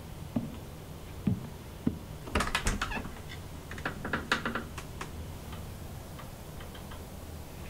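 A few soft thumps, then two quick runs of clicks and rattles from a door handle and latch as a bedroom door is eased open.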